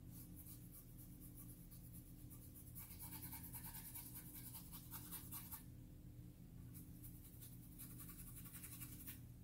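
Faint scratchy strokes of a paintbrush scrubbing acrylic paint onto canvas board, coming in two spells of quick back-and-forth strokes.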